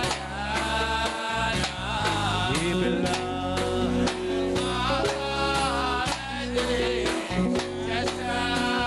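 Music with a singing voice over instrumental accompaniment and a steady beat.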